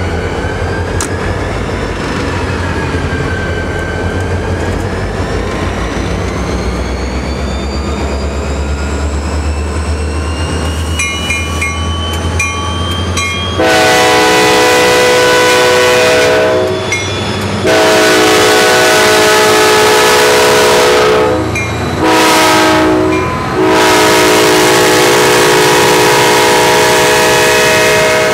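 Diesel freight locomotives running as they pull past close by, with a steady low rumble and a gliding whine. A few short repeated rings come about 11 seconds in, then the lead locomotive's multi-chime air horn sounds two long blasts, a short one and a long one, the standard grade-crossing signal, louder than everything else.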